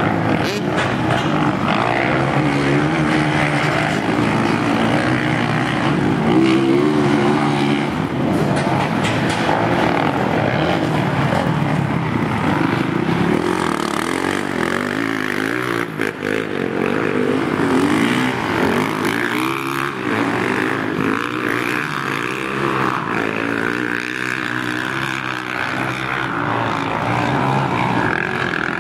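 Several motocross dirt bikes racing, their engines revving up and down in pitch as riders accelerate and shift, the engine notes overlapping.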